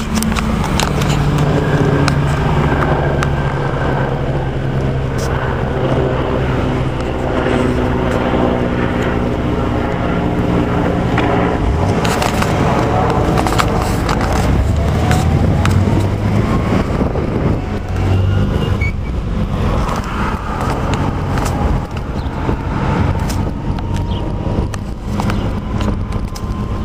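Military helicopter flying overhead, a steady engine and rotor drone mixed with street traffic.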